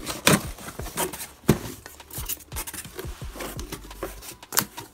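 Scissors cutting cardboard with irregular crackling snips, two of them sharper and louder near the start, then cardboard and foam packing peanuts rustling as hands move through the box.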